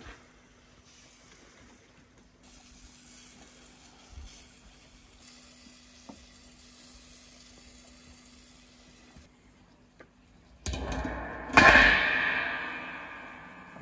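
Large metal lid set over the mouth of a stone tandoor near the end: a short scrape, then a loud clang that rings and fades over about two seconds.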